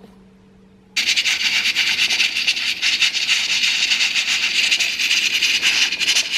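Cuckoo electric pressure rice cooker venting steam during its automatic steam-cleaning cycle. The loud, rough, steady hiss starts abruptly about a second in.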